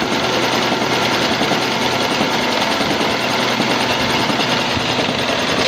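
CNC milling machine cutting a step into high-carbon high-chromium (HCHCR) tool steel: a loud, steady, fast rattle of the cutter against the metal over the constant machine noise.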